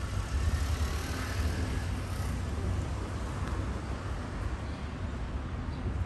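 Steady low rumble of city street traffic, with an even background hiss of passing vehicles.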